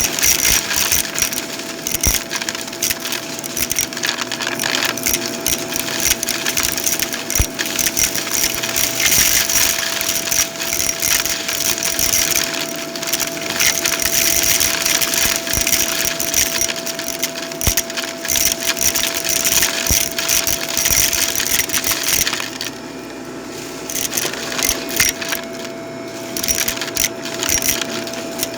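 Vacuum cleaner running over carpet, its motor a steady whine under a hiss of suction, with dense rattling clicks and crackles of debris being sucked up; the crackling eases briefly about three quarters of the way through.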